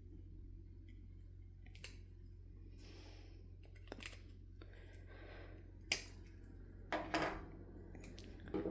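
Small hard clicks and taps of a disassembled paddle light switch's plastic and metal parts being handled and worked by hand, scattered and irregular, the loudest about six seconds in and a quick run of clicks near the end, over a faint low hum.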